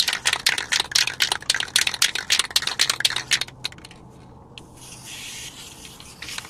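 Aerosol spray-paint can shaken hard, its mixing ball rattling rapidly for about three seconds. After a brief pause, the nozzle is pressed and paint hisses out steadily for the last two seconds.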